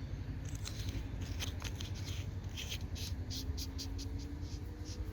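Rapid light clicks and scraping of a Fenix E35 V3 flashlight being assembled by hand, its battery going in and the tail cap being screwed down over the gasket.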